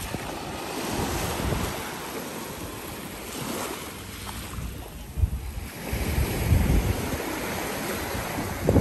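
Wind buffeting the microphone over the steady wash of sea water, with gusts that grow stronger after about five seconds.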